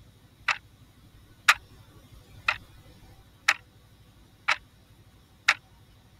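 Clock-tick sound effect marking the answer time in a quiz, ticking evenly once a second, six ticks.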